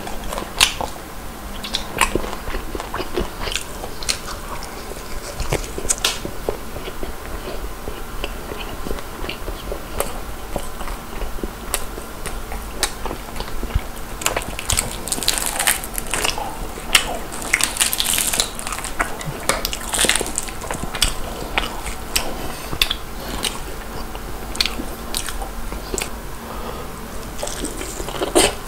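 Close-miked biting, crunching and chewing of crispy Korean-style whole fried chicken, with a stretch of crackling about halfway through as the fried batter is pulled apart by hand.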